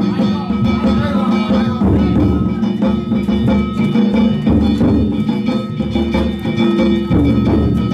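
Danjiri float's narimono: a taiko drum and small kane gongs beaten in a steady rhythm, the gongs' ringing tones hanging over the drum strokes.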